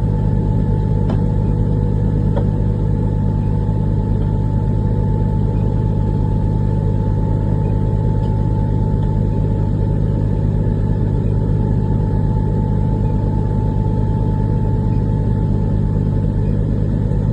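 Heavy diesel engine running at a steady speed, a loud, even low drone that does not change.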